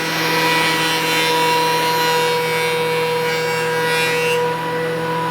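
Electric woodworking power tool running at a steady pitch and working wood, with a hiss of cutting over the motor's whine; the hiss eases about four seconds in while the motor keeps running.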